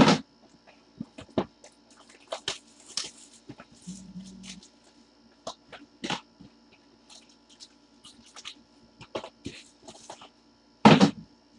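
Plastic shrink wrap being torn and peeled off a sealed cardboard trading-card box, with crinkling and scattered handling clicks. Sharp knocks at the start and near the end, with a short low buzz about four seconds in.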